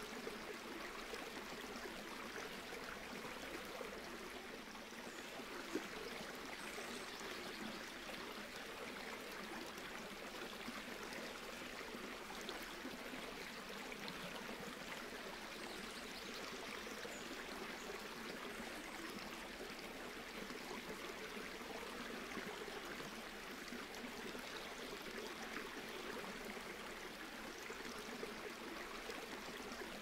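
Shallow, rocky stream flowing steadily, water trickling and rippling over stones.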